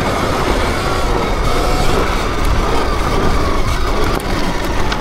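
Sur-Ron electric dirt bike being ridden: a steady rush of riding noise with a faint high whine in it.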